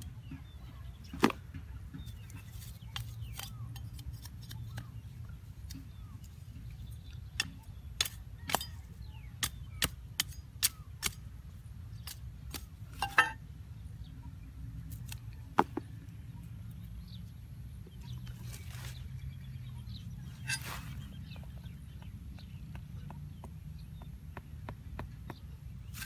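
Sharp clicks and taps of dry sticks and bark slabs knocking together as a stick-and-bark deadfall trigger is fitted by hand, about a dozen scattered through, bunched in the middle, over a steady low rumble.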